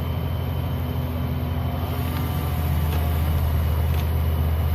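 A crane's engine running steadily, giving a low, even hum.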